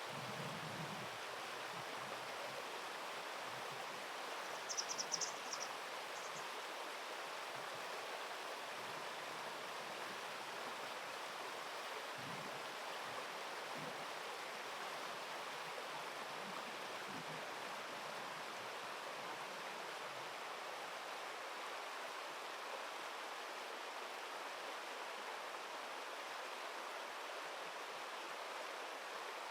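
Steady rush of flowing river water, with a brief burst of high chirps about five seconds in.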